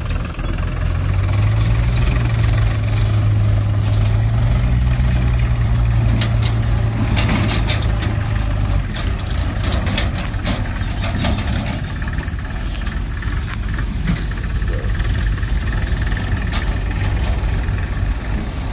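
Mahindra 475 DI tractor's diesel engine running steadily as it moves its trolley, a strong low drone for the first half that eases after about nine seconds. Scattered clanks sound in the middle.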